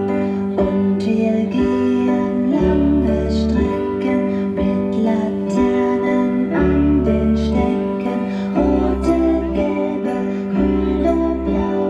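Music playing: a song with a melody over sustained bass notes that change about every two seconds.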